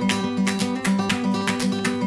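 Background music led by a strummed guitar, with a quick, steady rhythm of strokes.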